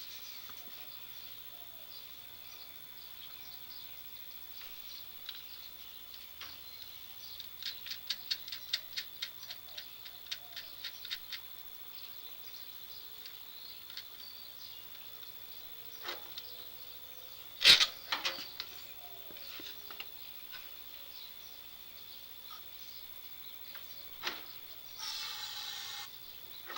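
Light clicking and tapping of hand tools during work on a riding mower: a quick run of clicks, about five a second, then one sharp knock, with a short hissing rush near the end.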